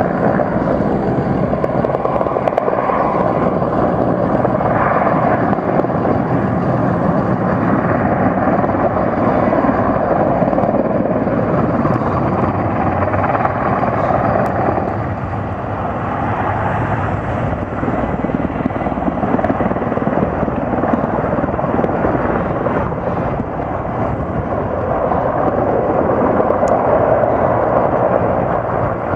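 Sikorsky S-64 Skycrane heavy-lift helicopter hovering low, its twin turbine engines and six-blade main rotor running loud and steady, easing off slightly a couple of times.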